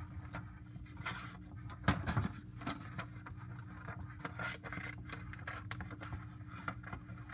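Scissors snipping through a sheet of paper, with the paper rustling as it is turned. The irregular cuts and rustles are loudest about two seconds in.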